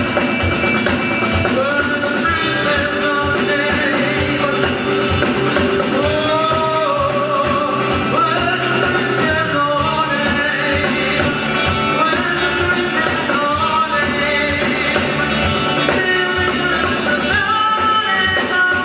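Rock song with a lead vocal over a steady drum-kit beat and guitar, played by a band.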